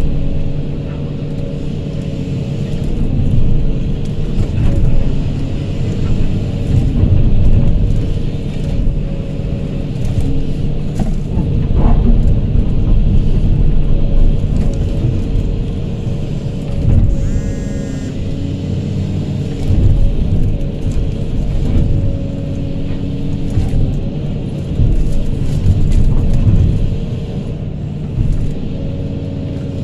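Hydraulic excavator heard from its cab: the diesel engine runs steadily and rises and eases in loudness every few seconds as the boom and bucket are worked, with a few small knocks.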